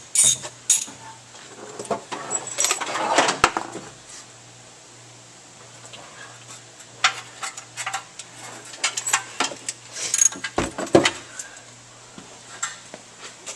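Scattered sharp metallic clinks and light rattles, in two bunches, over a faint steady hum.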